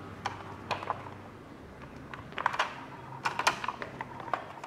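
A scattered series of light plastic clicks and taps from a toy forklift truck and its plastic pallet being handled and turned over.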